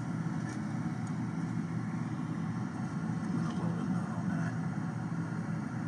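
A steady low mechanical hum of machinery running in the background, even in level throughout.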